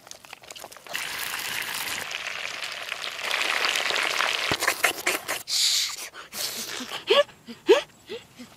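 A steady crackling hiss with scattered clicks for the first few seconds. Near the end a boy laughs in short falling bursts, two or three a second.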